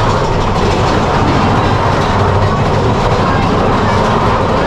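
Big Thunder Mountain Railroad's mine-train roller coaster running along its track: the cars make a loud, steady rattle and rumble.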